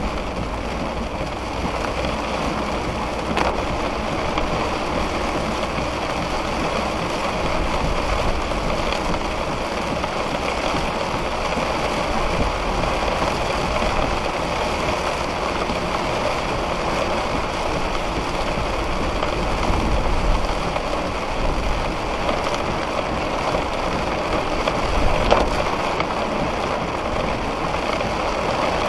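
Heavy rain falling steadily in a thunderstorm downpour, a constant unbroken hiss.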